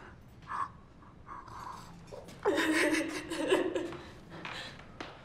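A woman sobbing: short, catching breaths, then a loud wavering sob about two and a half seconds in that lasts about a second.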